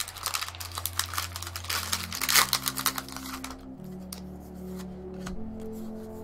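Foil Pokémon booster pack wrapper crinkling and rustling as it is handled and put down, loudest about two seconds in; the crinkling dies away a little past halfway. Background music with held chords runs under it.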